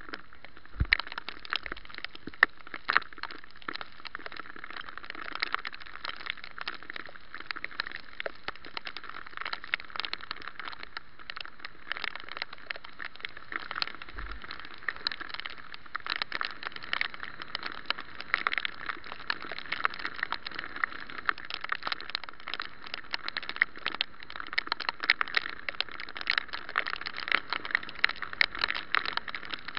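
Rain and road spray pattering on a bicycle-mounted camera's housing while riding on a wet street: a steady, dense crackle of small ticks.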